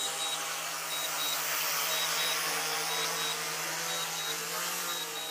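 DJI Mavic 3 drone descending to land under automatic return-to-home, its propellers giving a steady buzzing hum over a high hiss.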